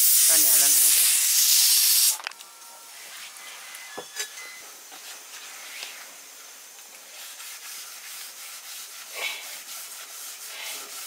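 Steam hissing hard out of a pressure cooker that has just finished cooking dal, then cutting off abruptly about two seconds in. After that, faint rubbing and scraping with a single sharp knock about four seconds in.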